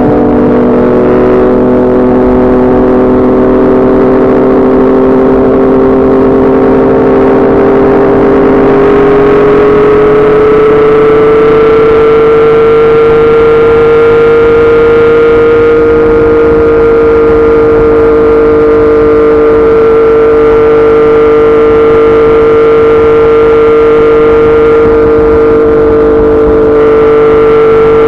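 Yamaha MT-09's three-cylinder engine through a Yoshimura R55 slip-on exhaust, running at steady cruising revs. The pitch rises gently about ten seconds in, then holds steady.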